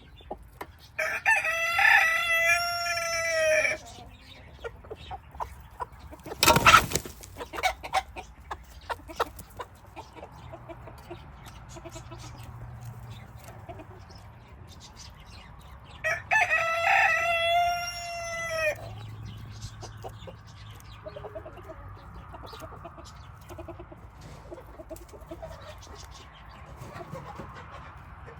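A flock of chickens clucking, with a rooster crowing twice, each crow close to three seconds long, about a second in and again about sixteen seconds in. A single loud thump comes about six and a half seconds in, and scattered small clicks run throughout.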